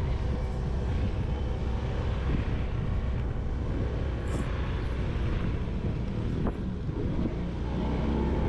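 Motorcycle being ridden at a steady speed, its engine running under heavy wind rumble on the microphone.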